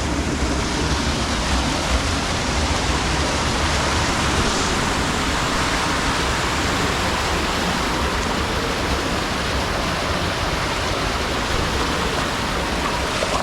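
Steady rushing of falling or flowing water: an even, unbroken hiss.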